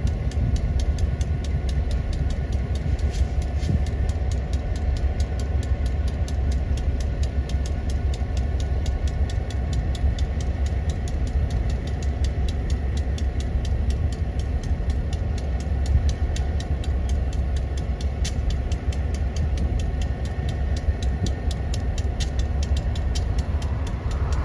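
Diesel locomotive engine idling: a steady low rumble.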